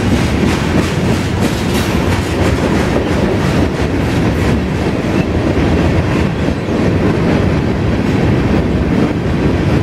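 Freight train of boxcars and covered hopper cars passing close by at speed: a steady rumble and rattle of the cars, with the wheels clicking over the rail joints.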